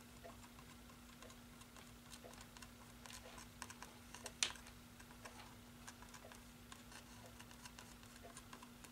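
Faint light taps and scratches of a small paintbrush dabbing short strokes on canvas, with one sharper click about four and a half seconds in, over a steady low hum.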